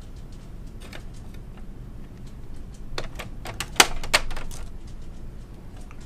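Plastic fan shroud being unclipped and lifted out of an HP Z800 workstation case. There is a single faint click about a second in, then a quick run of sharp plastic clicks and knocks about three seconds in, the loudest near four seconds.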